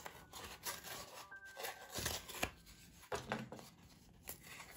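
Paper-pulp egg carton being torn by hand into small pieces: an irregular run of short tearing sounds.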